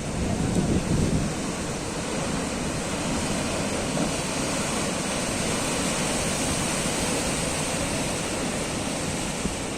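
Atlantic surf breaking and washing against the shore in a steady rush of noise, swelling louder about a second in.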